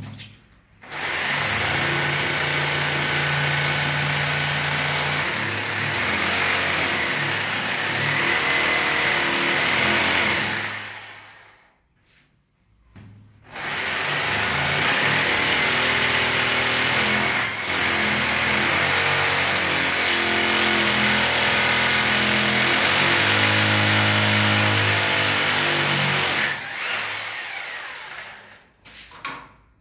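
Corded rotary hammer drill boring into ceramic wall tile, its motor running steadily in two long spells of about ten and thirteen seconds, with a short stop between them.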